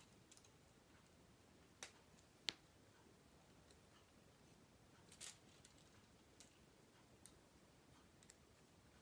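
Sparse, faint clicks of K'nex plastic pieces being snapped together as seats are fitted onto the model Ferris wheel, with the sharpest click about two and a half seconds in and a small cluster around five seconds.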